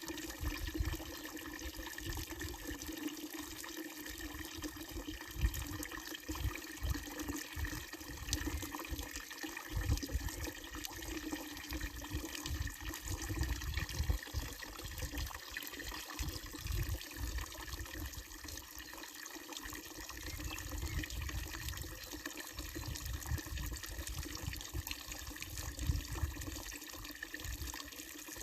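Water pouring steadily from a wooden trough spout of an old village fountain and splashing into the basin below.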